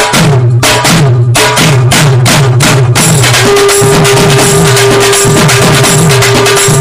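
Outro music with a steady drum beat over a repeating bass line; about three seconds in the beat fills out with continuous cymbal-like hiss and a long held note comes in.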